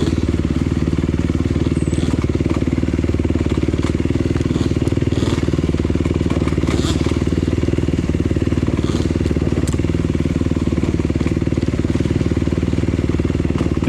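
Dirt bike engine running at a steady, even pace on the trail, with a few faint clicks scattered through.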